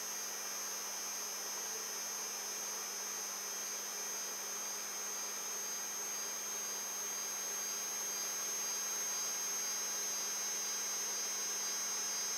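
Protomaker 3D printer's Z-axis stepper motors turning the threaded rods as the carriage travels down to home: a steady high whine over a low hum.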